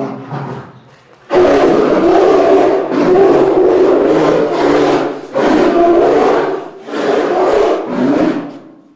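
Polar bear growling: a short call at the start, then from about a second in several long, loud, rough growls in a row with brief breaks between them.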